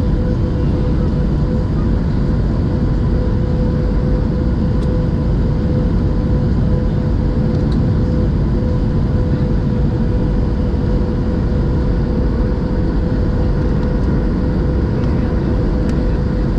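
Steady cabin noise inside a Boeing 737-700 in flight: the low rumble of the engines and rushing air, with a steady hum running through it.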